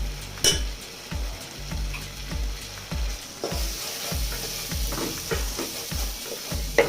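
Bengali spice paste of onion, ginger, garlic, chilli and turmeric sizzling in hot oil in a pot as it is stirred and fried down, with a couple of sharp clicks. The sizzle grows louder about halfway through.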